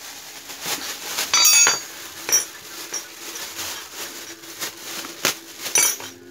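Clear plastic bag crinkling and rustling as a Tekiro steel T-handle socket wrench is pulled out of it and handled, with scattered metallic clinks and knocks from the wrench.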